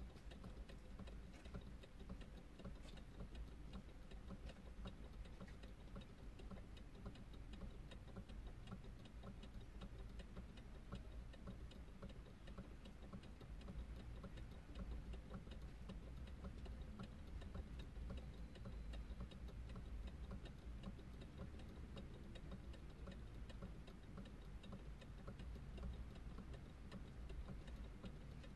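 Steady, evenly spaced ticking, about three or four ticks a second, over a low steady hum inside a car's cabin.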